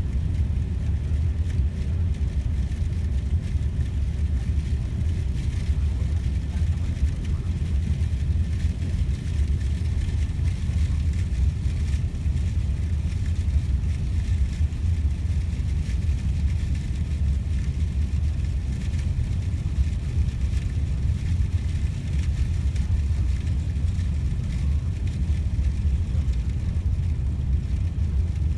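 Steady low rumble inside the passenger cabin of a KTX high-speed train running at speed. The rumble is unchanging throughout.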